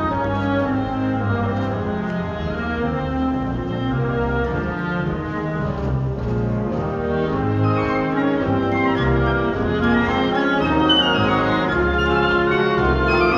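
Live military band music: a wind band playing a melody over sustained brass and reed chords.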